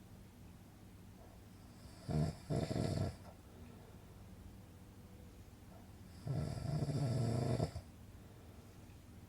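A person snoring: two snores about four seconds apart, a short one broken in two about two seconds in and a longer one of about a second and a half past the middle. A faint steady hum lies under and between them.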